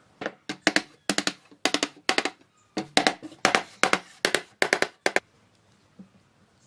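Wooden mallet striking a wooden block held against the ends of clamped wood strips, tapping them into line. It is a quick run of sharp wooden knocks, about four a second, each with a brief ring, and it stops a little after five seconds in.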